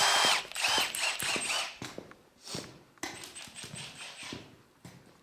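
Metal hand tools clattering, then a socket ratchet clicking in short runs while working loose exhaust manifold bolts.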